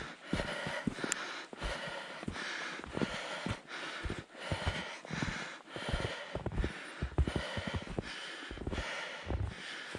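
A hiker's heavy, rhythmic panting from the exertion of climbing a steep, snow-covered slope, about one and a half breaths a second, with low thumps in between.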